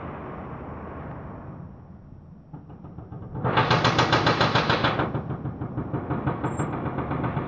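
Demolition machinery: a rapid mechanical rattling, about seven knocks a second, starts sharply about three and a half seconds in, loud for about a second and a half, then keeps going more quietly.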